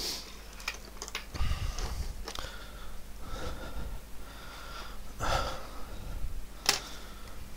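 A man breathing and sniffing close to a headset microphone, with soft rustling and one sharp click near the end.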